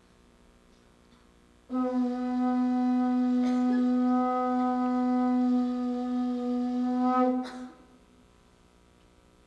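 A blown horn sounding one long, steady, unwavering note for about six seconds, starting sharply about two seconds in and stopping abruptly.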